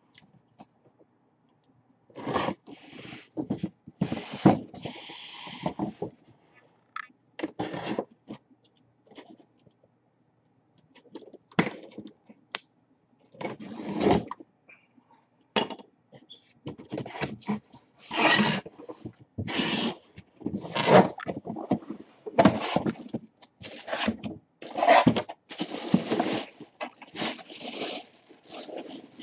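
Large cardboard box being handled and opened: cardboard scraping and rubbing in irregular bursts, with short pauses between.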